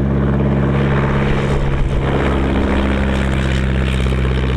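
De Havilland Chipmunk's 6.1-litre air-cooled inline-four Gipsy Major engine and propeller running steadily as the plane passes along the runway, the engine note shifting slightly about halfway through.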